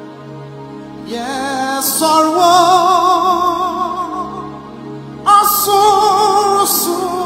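Live gospel music: soft sustained accompaniment, then a singer comes in about a second in on long held notes with vibrato, and a second, louder phrase begins about five seconds in.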